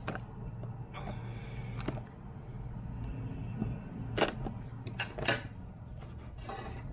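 Scissors snipping through the seal stickers on a small cardboard box, a few sharp snips and clicks, the loudest about four and five seconds in, with the scrape and rustle of the box being handled.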